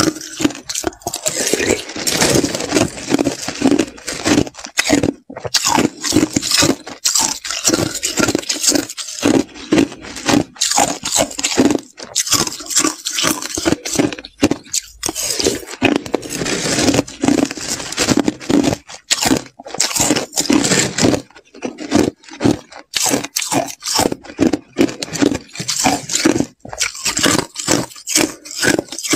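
Slushy crushed ice being chewed close to a lapel microphone: rapid, irregular crunching with short pauses between mouthfuls.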